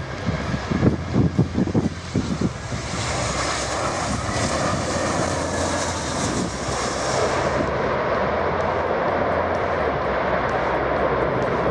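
Twin-engine jet airliner landing and rolling out on the runway, with steady jet engine noise. Low gusty rumbles at first, then the engine noise swells about two and a half seconds in; a high hiss stops around eight seconds in and a steady rushing noise carries on.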